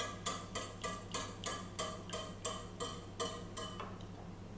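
Egg and water mixture being beaten in a bowl, the utensil clicking against the bowl at about four strokes a second; the beating stops near the end.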